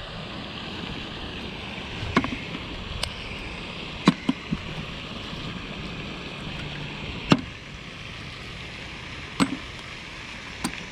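Steady outdoor background noise with a scattering of sharp clicks and knocks, about eight of them at irregular intervals, from magnet-fishing gear and finds being handled.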